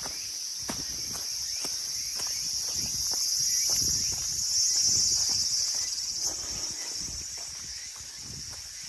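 Insects shrilling in a steady high chorus that swells louder about halfway through and then eases off, over a walker's regular footsteps.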